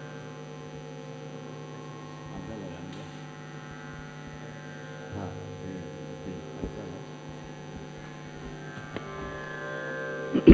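Soft Hindustani semi-classical accompaniment to a hori thumri in raga Mishra Kafi: a held harmonium drone with a few faint melodic phrases and sparse tabla strokes, over a steady hum.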